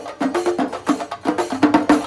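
Shinkarimelam ensemble of Kerala chenda drums beaten with sticks in a fast, dense rhythm, the sharp cracking strokes packed closely together.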